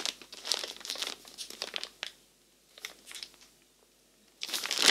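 Clear plastic bag crinkling as it is handled and turned over, in short irregular bursts with a quiet pause midway and a louder burst near the end.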